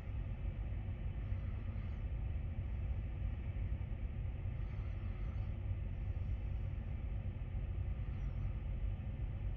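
Wind buffeting the microphone: a steady, low, gusty rumble.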